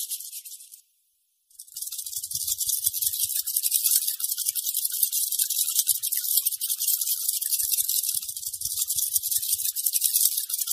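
Night crickets chirping in a fast, steady, high trill, with a brief dropout about a second in.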